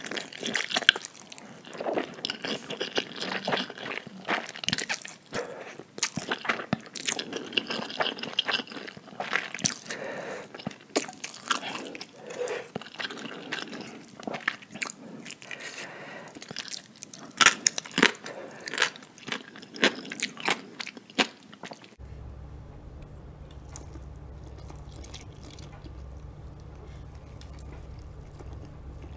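Close-miked eating of instant noodles: wet slurps, chewing and sharp mouth clicks and smacks. About 22 seconds in, the sound changes to a quieter recording with a steady low hum under fainter eating sounds.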